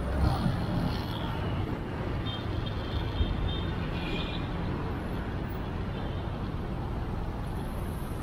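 Motorcycle riding slowly in city traffic: a steady rumble of engine and road noise.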